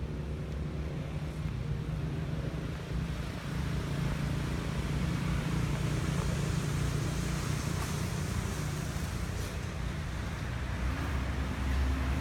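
Steady low engine rumble with a hiss of outdoor noise, growing a little louder about three and a half seconds in.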